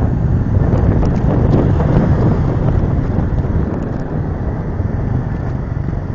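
Wind buffeting the microphone on a moving motorcycle, a dense rushing noise with the bike's road and engine noise beneath it. It eases a little in the second half.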